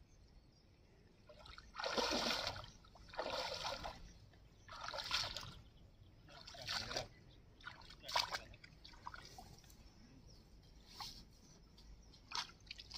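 Water sloshing and splashing around a man's legs as he wades out of a shallow river, about five splashy steps roughly a second and a half apart, then only faint small rustles once he is on the bank.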